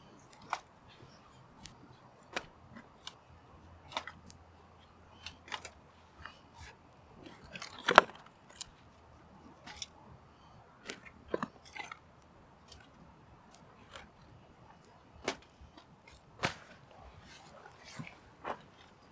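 Campfire crackling: scattered, irregular sharp pops and clicks, with one louder pop about eight seconds in.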